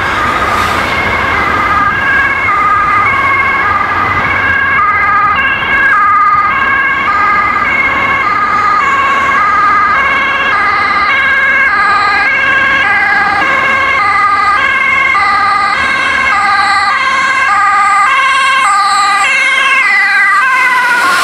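Dutch ambulance's two-tone siren sounding, switching between a high and a low note about twice a second over a steady tone. Near the end the pitch drops as the ambulance passes.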